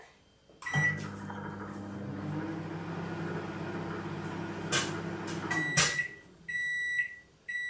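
Microwave oven running with a steady hum, which starts with a click and a short beep. About five and a half seconds in it cuts off with a click, and a long beep follows, then a second beep starts near the end, signalling that the cooking cycle has finished.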